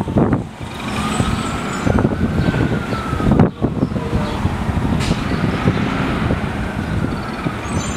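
City street traffic, led by the engine of a CNG transit bus running just ahead. A faint tone rises and falls twice.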